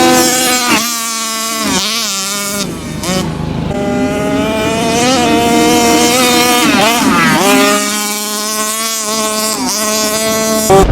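Radio-controlled car's motor running hard, its pitch dipping and climbing back several times as the throttle changes. A sudden loud low burst comes right at the end.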